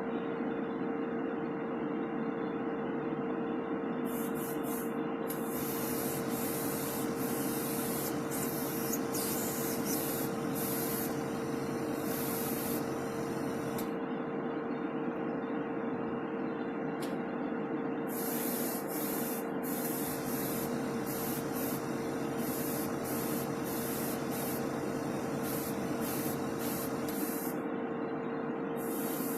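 An airbrush hissing in repeated spells as its trigger is worked, over the steady hum of a spray booth extractor fan with a constant tone.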